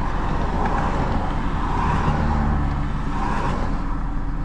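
Truck engine idling, heard from inside the cab, with traffic passing on a busy road; passing cars swell louder about two seconds in and again a little after three seconds.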